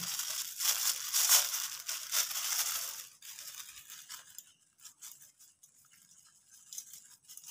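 A small plastic spice packet crinkles and rustles loudly as it is handled and shaken open. From about three seconds in there are only faint scattered rustles as the ground spice mix is sprinkled over the potatoes.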